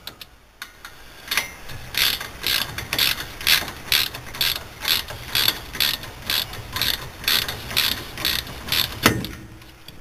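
Socket ratchet clicking in steady strokes, about two a second, as a brake caliper mounting bolt is backed out; it starts about a second in and stops near the end.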